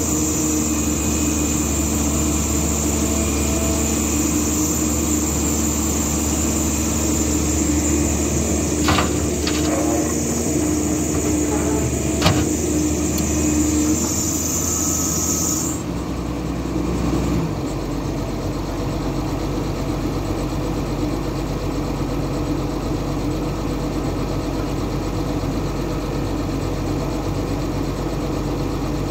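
Caterpillar hydraulic excavator's diesel engine running at close range, with a high whine over it. There are a few sharp knocks around 9 and 12 seconds. Partway through, the whine stops and the engine settles to a lower, steadier note.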